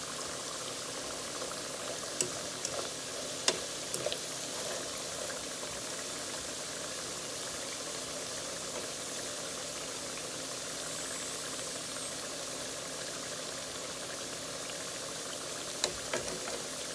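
Green plantain slices sizzling steadily in hot vegetable oil in a frying pan, with a few light clicks of a metal fork against the pan as the pieces are turned.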